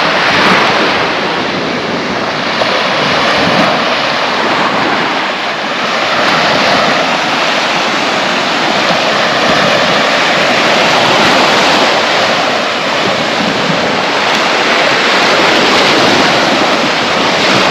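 Sea waves washing onto a beach: a steady rush of surf that swells and eases every few seconds.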